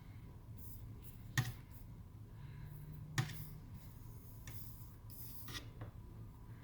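Quiet handling sounds from hand-soldering a small circuit board: two sharp light clicks, about a second and a half in and again about three seconds in, with a few faint brief hisses over a low steady hum.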